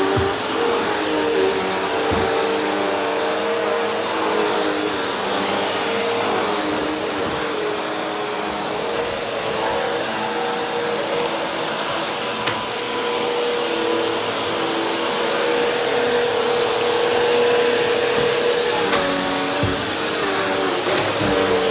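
Vacuum cleaner running steadily, its motor hum wavering slightly in pitch, with a few faint knocks.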